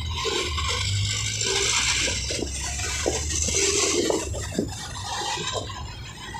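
Wind rushing over the microphone of a phone carried on a moving motorcycle, a hiss that swells through the middle and eases near the end, over the low rumble of the motorcycle in traffic.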